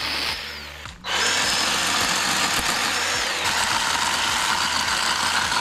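Small electric chainsaw cutting through tree branches: a short burst of motor whine that stops about a second in, then a longer run whose pitch drops midway as the chain bites into the wood.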